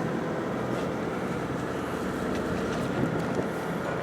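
A sportfishing boat's engine running steadily, a constant low hum under an even wash of wind and water noise.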